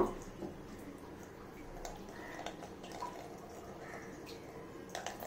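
Coconut milk dripping and trickling into a plastic bowl as ground coconut paste is squeezed by hand through a plastic strainer, faint, with a sharp click right at the start.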